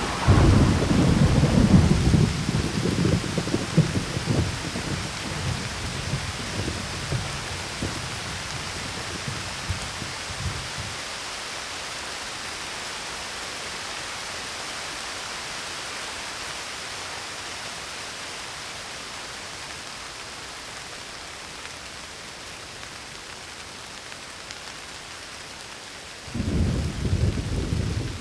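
Thunderstorm: steady rain hiss, with a clap of thunder at the start that rumbles away over about ten seconds, and another roll of thunder near the end.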